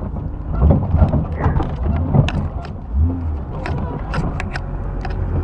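A truck crawling over a rough trail, heard from inside the cab: the engine runs low and steady under a string of sharp knocks and rattles from the body and suspension as it works over the bumps.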